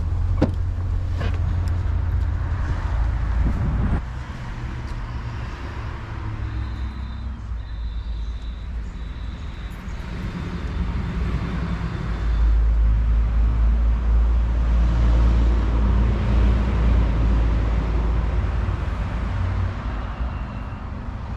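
Steady low rumble of a car and road traffic, louder from about twelve seconds in.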